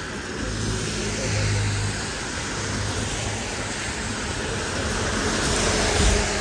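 A motor vehicle passing close by: a low engine hum and tyre noise that swell, peak near the end, then fall away.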